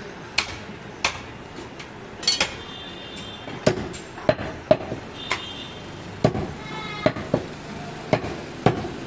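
Butcher's knife and cleaver chopping through a goat leg onto a wooden log chopping block: about a dozen sharp knocks at irregular intervals.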